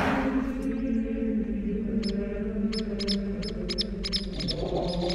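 Droning music on the film's soundtrack, with several steady low tones held throughout. From about two seconds in, a quick run of short, high chirps sounds over it.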